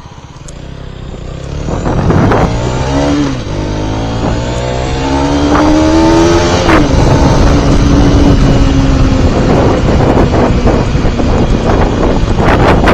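Mondial HPS 125i's single-cylinder engine pulling away and accelerating through the gears. The note climbs, dips at a shift about three seconds in, climbs again and drops at the next shift about halfway through. After that, wind rushing over the helmet-mounted microphone covers most of the engine.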